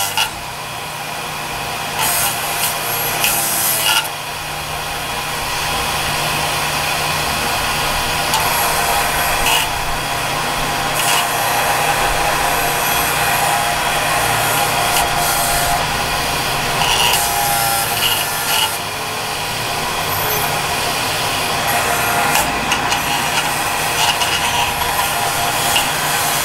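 Bench-mounted electric grinder running steadily while a piece of bronze bar is held against the wheel, grinding its edges round. The grinding rasp carries a steady motor hum and swells briefly several times as the metal is pressed harder against the wheel.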